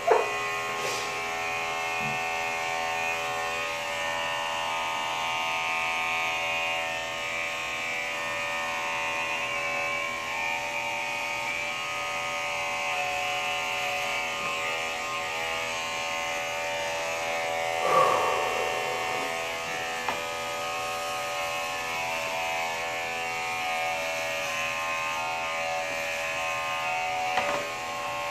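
Corded electric hair clippers buzzing steadily as they are run over a scalp to shave a head. A brief louder sound breaks in about two-thirds of the way through.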